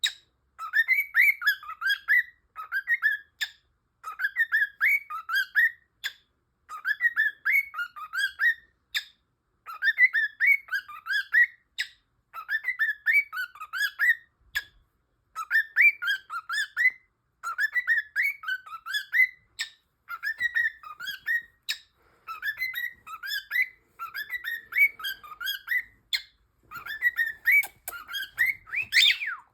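Cockatiel whistling the same short phrase of quick rising and falling notes over and over, a new phrase about every two seconds with only brief gaps.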